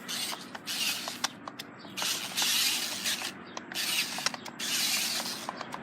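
Radio-controlled car driven in short spurts: four hissing bursts of motor and tyre noise, each about a second long, with scattered clicks and rattles between them.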